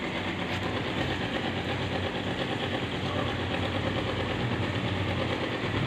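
An engine or motor running steadily, a low even hum.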